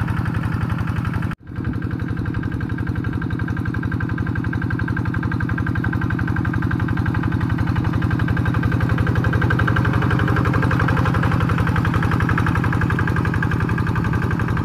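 Quick G1000 hand tractor's single-cylinder diesel engine running steadily under load as it ploughs a flooded rice paddy, with a fast, even chugging beat. The sound breaks off for a moment about a second and a half in.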